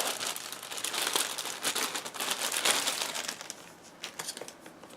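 Packaging crinkling and rustling as a box item is unwrapped by hand, dense and crackly for about three seconds, then dying away.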